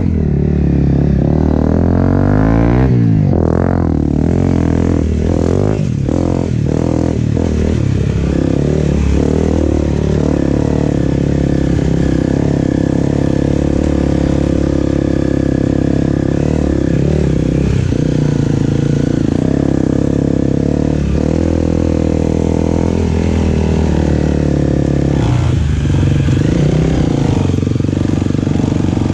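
Dirt bike engine under way on a trail, revving up and down several times in the first few seconds, then running steadily at a held engine speed, with a few more changes in revs near the end.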